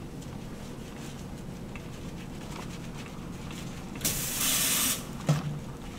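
Water from a sensor-activated sink faucet sprays onto hands for about a second, a loud hiss starting about four seconds in, over a faint steady background. A short soft knock follows just after.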